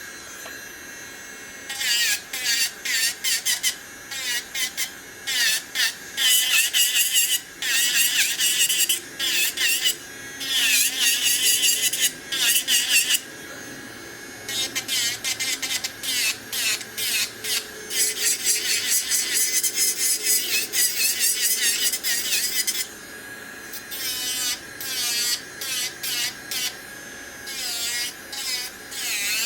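YAFEX electric nail drill (e-file) running at about 30,000 RPM with a steady high whine, its bit grinding gel polish off a nail in many short passes, each pass a burst of gritty hiss.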